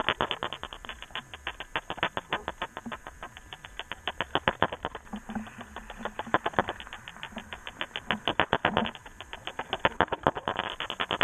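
Fast, uneven clicking and rattling of hard-bodied diving lures (crankbaits) being retrieved, heard underwater: many clicks a second, with a few brief lulls.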